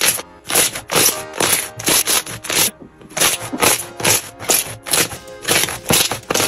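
Thick green slime being pressed and squished by hand: an irregular run of short squishing, crackling sounds, with a brief break about three seconds in, over background music.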